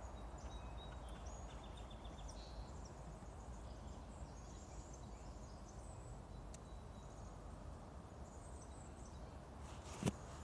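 Faint scattered chirps of small songbirds over a steady low background hum, with one sharp click about ten seconds in.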